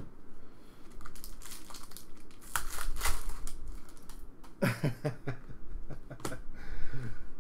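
2014 Panini Prizm trading cards being handled and flipped through, a run of quick, crinkly snaps and rustles of the glossy card stock.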